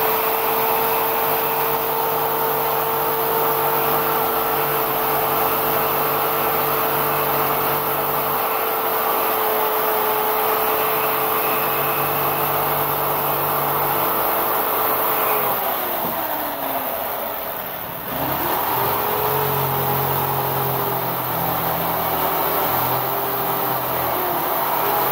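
Jigsaw running steadily as it cuts through blue foam board. About two-thirds of the way through, the motor winds down nearly to a stop, then speeds back up and keeps cutting.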